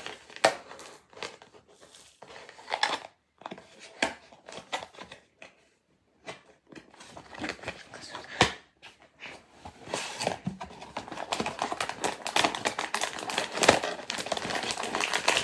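Blind-box packaging being torn open and crinkled by hand: irregular rustling and crackling, with sharp tearing sounds. It comes in scattered bursts at first, then turns busier and louder over the last few seconds.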